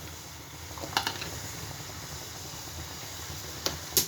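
A pot of water boiling on the stove, a steady hiss, with a few light clicks of utensils against the pot about a second in and near the end.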